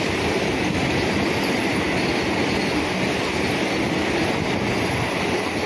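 Vande Bharat Express electric trainset passing, a steady loud noise of its coaches' wheels running on the rails.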